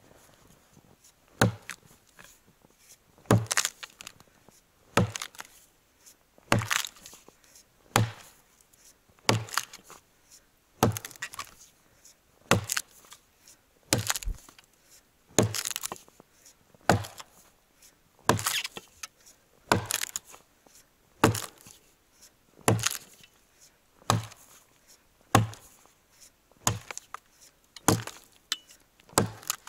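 Forged axe on a 75 cm handle chopping into a felled, very dry log to buck it: sharp blows of the blade biting into the dry wood, about one every second and a half.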